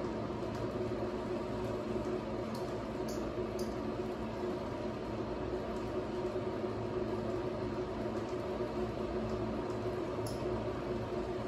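A steady hum and hiss, like a small appliance or fan running, holding level throughout, with a few faint short clicks about two and a half to three and a half seconds in and again near the end.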